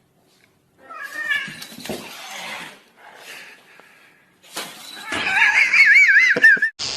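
A cat meowing, then a louder, drawn-out yowl whose pitch wavers up and down near the end, over clattering noise.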